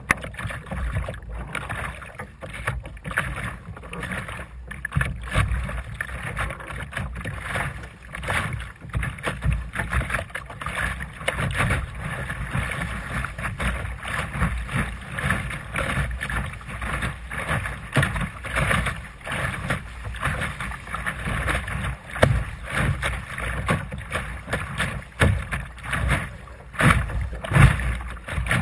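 Water rushing and slapping against the hull of a Sunfish sailing dinghy under way, in irregular surges, with wind buffeting the microphone.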